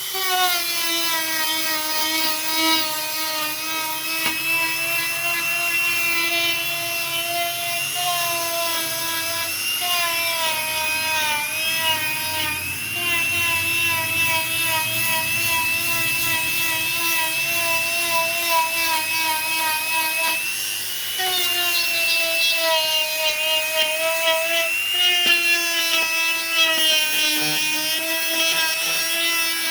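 Small electric power tool motor whining at a steady high pitch, with the pitch sagging briefly at times, as when the tool is loaded by cutting into the wood. The whine drops out for a moment about two-thirds of the way through, then returns.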